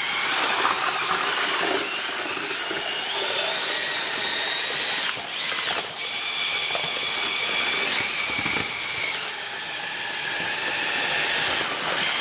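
Makita cordless drill turning a paddle mixer through concrete mix in a plastic bucket. The motor whines steadily, shifting pitch several times as the speed changes, and eases off briefly twice about five to six seconds in.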